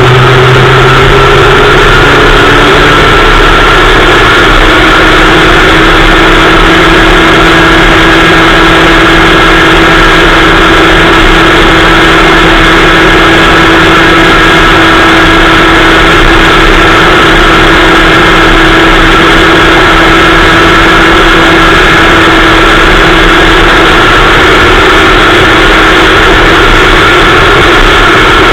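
Kid kart engine running loud and close to the microphone. Its pitch shifts slightly in the first couple of seconds and then holds nearly steady.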